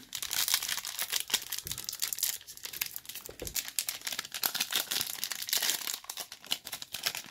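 Foil wrapper of a trading-card pack crinkling in the hands as it is opened, a continuous irregular crackle.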